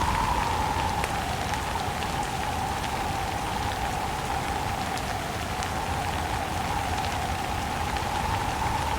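Steady rain with wind: an even hiss of rainfall with scattered drops ticking, over a wind tone that sinks a little in the middle and rises again near the end.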